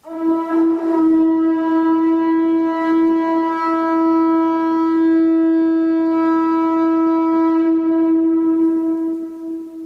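Conch shell trumpet blown in one long steady note with a bright, buzzy edge, beginning sharply and fading out near the end.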